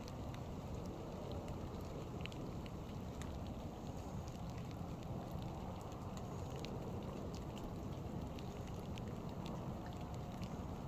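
Light rain: scattered drops ticking over a steady low rumble.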